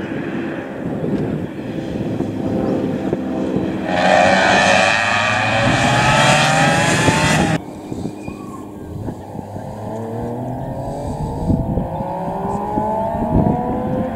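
Rally car engines on a stage. A hatchback rally car accelerates hard past at close range, its revs climbing, until the sound cuts off abruptly about halfway through. Then a second rally car is heard more faintly from further off, revving up through the gears as it approaches.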